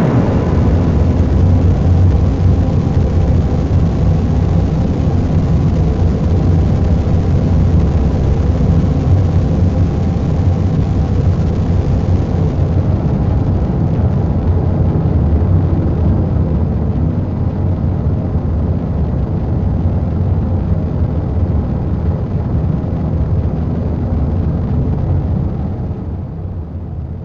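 Cloudy granular effects pedal self-oscillating with no input, high feedback, tiny grains and the sound frozen: a steady, deep, rocket-engine-like roar. Near the end it grows quieter.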